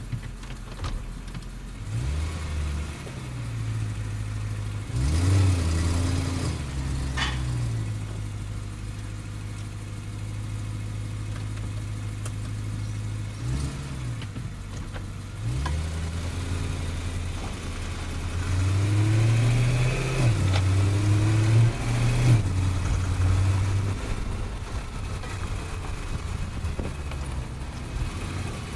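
BMW E90 M3 drivetrain heard from under the car at low speed: the V8's low note rises and falls several times as the car pulls away and eases off, with a rattle and an occasional metallic tink from the driveshaft. The rattle sounds like a bad driveshaft CV joint, and the owner takes the tink for a centre support bearing that needs repacking with grease.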